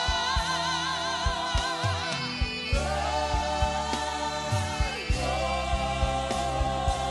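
Live gospel worship music: women singers hold long notes with vibrato, backed by a choir and a band of bass guitar, electric guitar and keyboards, with regular drum beats underneath.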